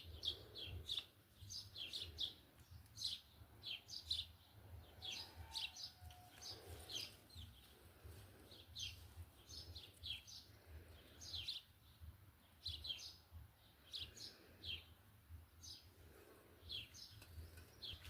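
Small birds chirping: many short, high, falling chirps in quick succession, over a low steady hum.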